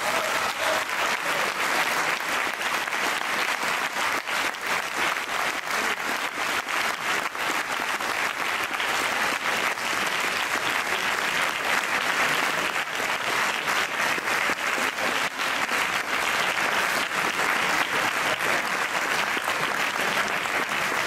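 Audience applauding, many hands clapping in a steady, dense ovation.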